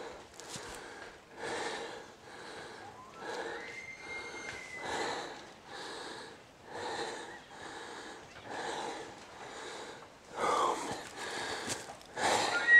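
Heavy breathing close to the microphone, about one breath a second. About three and a half seconds in, a faint high whistle rises and holds for about a second: a bull elk bugling in the distance. Right at the end a louder bugle begins.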